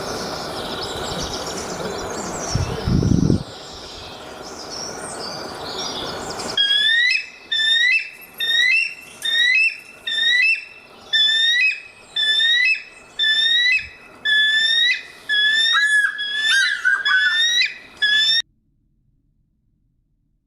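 Eagle calling: a run of high, thin whistled notes, each dropping in pitch, repeated in quick groups and cutting off suddenly near the end. Before the calls there is a stretch of steady noise with a low thump about three seconds in.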